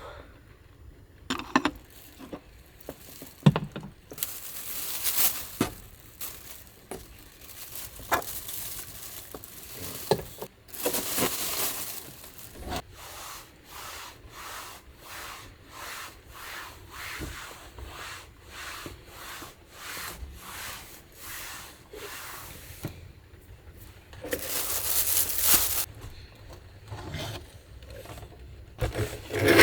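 Close rubbing and scraping from handling things by hand: a run of regular strokes about one and a half a second, several longer rustling swishes and a few knocks.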